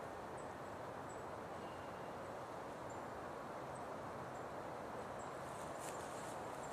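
Quiet woodland ambience: a steady hiss with faint, short, high chirps every second or so, and a few rustling steps in dry leaves near the end.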